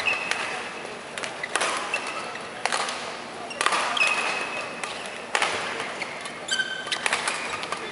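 Badminton play: scattered sharp racket-on-shuttlecock hits and short high squeaks of court shoes, irregularly spaced, with a brief stronger squeak about two-thirds of the way through.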